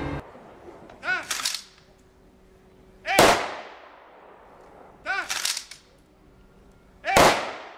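Honor-guard rifle salute: twice, a short shouted command is followed about two seconds later by one volley of rifles fired together, with a long echoing tail. The volleys come about four seconds apart.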